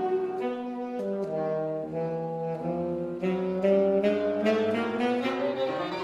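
Saxophone playing a quick run of notes together with violin and piano in an avant-garde chamber trio, the saxophone leading. A little past halfway the notes climb in pitch and the playing gets louder.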